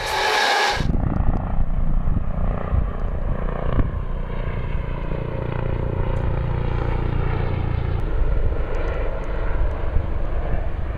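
A small aircraft flying overhead, a steady engine drone over a low rumble. A short burst of intro sound effect cuts off under a second in.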